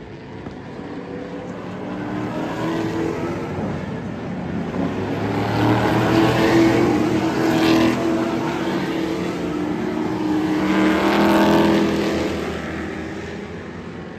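Several hot rod stock cars racing past through a turn, their engines at speed swelling and fading as they go by. The loudest passes come about six to eight seconds in and again around eleven seconds.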